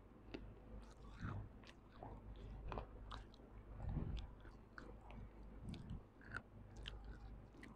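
A person chewing crunchy pieces of clay right against a lavalier microphone: irregular crisp crackles and clicks.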